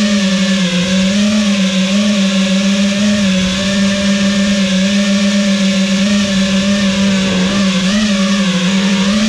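FPV quadcopter's electric motors and propellers buzzing, heard from the camera on board: a steady buzz whose pitch rises and falls slightly as the drone flies.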